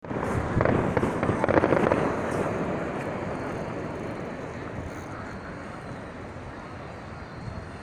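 Fireworks going off: a rapid cluster of bangs and crackles in the first two seconds or so, then the noise dies away slowly over the rest.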